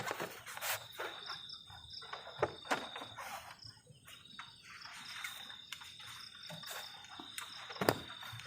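Crickets chirping in a steady high trill, with a few sharp knocks and clicks over it, the loudest near the end.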